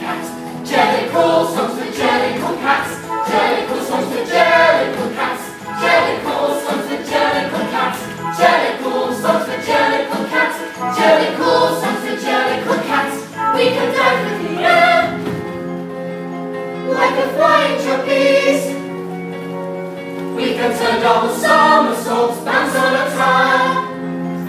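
Musical-theatre chorus singing an ensemble number in full voice over instrumental accompaniment.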